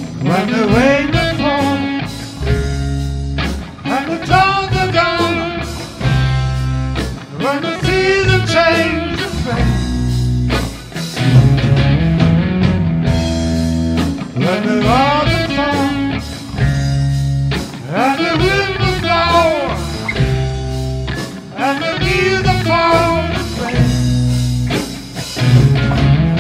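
Blues-rock band playing an instrumental passage: lead electric guitar phrases with bent notes, repeating every few seconds over bass and drums.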